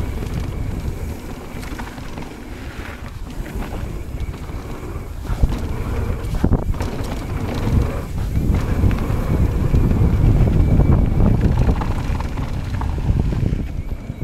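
Wind buffeting the microphone over the rumble of mountain bike tyres rolling down a gravel trail, swelling louder in the second half, with a couple of sharp knocks from the bike over bumps around the middle.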